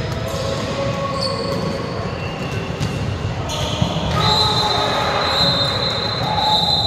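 Volleyballs being hit and bouncing on a sports-hall floor, with players' voices in the background. A high steady squeal sets in about four seconds in.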